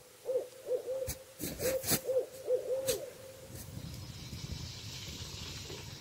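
An owl hooting: a quick run of about nine short hoots over the first three seconds, among sharp crackles from the wood fire. After that, a steady hiss from the fire and the pot of boiling maple sap.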